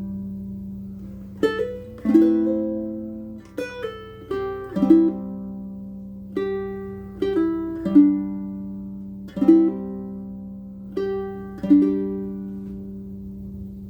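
Bruko short-scale baritone ukulele strung with PHD low-G gCEA all-unwound strings, played fingerstyle: a slow picked melody of single notes and pairs, each ringing and fading, over a low note that keeps sounding underneath.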